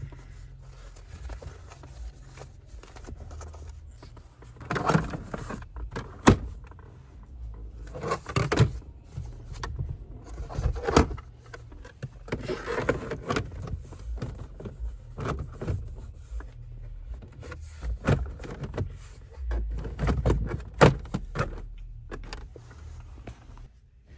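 Irregular clicks and clunks of things being handled inside a car, with several sharper knocks scattered through.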